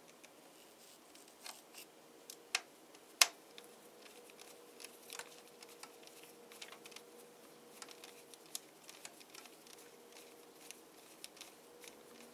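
Small screwdriver driving a screw through a bent sheet-metal clamp into a 3D printer heat bed: scattered faint metal clicks and scrapes, with two sharper clicks about two and a half and three seconds in. A faint steady hum runs underneath.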